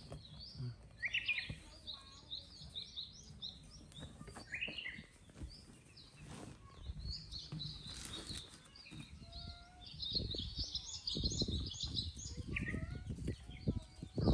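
Small birds chirping and twittering in quick, high notes throughout, busiest at the start and again in the second half, with soft low rustling and knocks from about ten seconds in.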